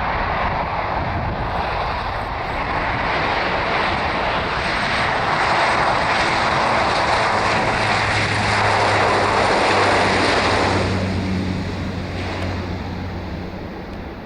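Bombardier Dash 8 Q400 turboprop airliner at takeoff power, its twin Pratt & Whitney PW150A turboprops growing louder as it passes. A steady low propeller hum comes in about eight seconds in, and the noise fades away near the end.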